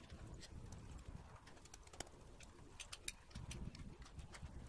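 Faint, irregular clicks and taps of a hand wrench working on a diesel engine's fittings, over a low hum.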